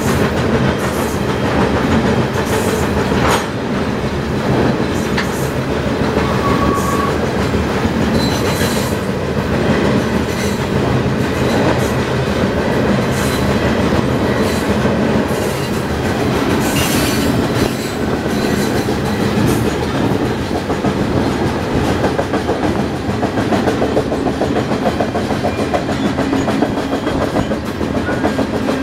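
Freight train rolling along, heard from the open end of a freight car: a steady running noise of steel wheels on rail, with occasional sharp clanks.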